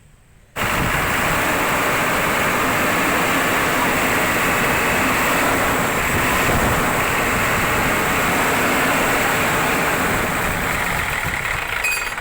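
Hino truck diesel engine running with its radiator cooling fan spinning fast, a loud steady rush of air over the engine noise. It cuts in abruptly about half a second in and fades near the end. The fan clutch has just been refilled with gel oil, so it now engages fully.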